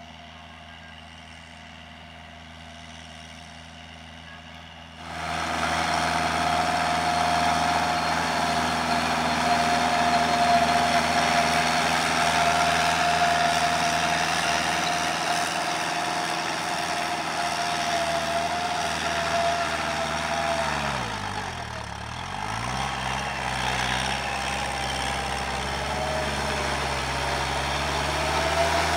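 Kubota L5018VN tractor's diesel engine running under load while its rear rotary tiller churns through grassy soil, louder from about five seconds in. About three-quarters through, the engine speed dips sharply and then picks back up.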